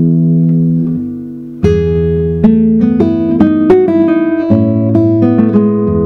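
Solo classical guitar played fingerstyle: a held chord rings and fades, then about a second and a half in a new phrase opens with a strong chord and continues as a run of quickly plucked notes.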